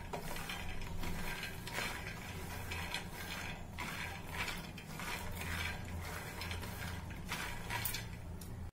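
Small raw peanuts rattling and scraping against a dry metal pan as they are stirred with a wooden spatula while being dry-roasted, an irregular run of small clicks over a low steady hum.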